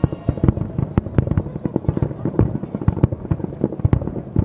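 Aerial firework shells bursting in a dense barrage, several bangs a second overlapping one another.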